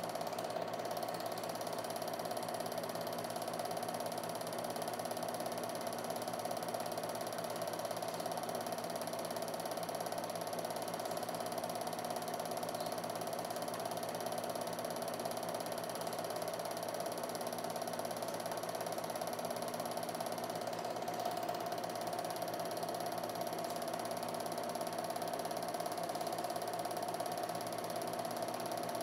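Film projector running steadily: a continuous mechanical whir and clatter of the film-advance mechanism, with a steady hum.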